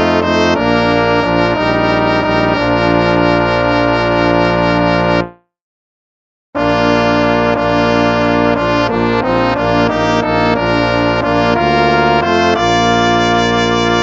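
Instrumental hymn music in brass-toned sustained chords; it stops for about a second partway through, then resumes with a new phrase.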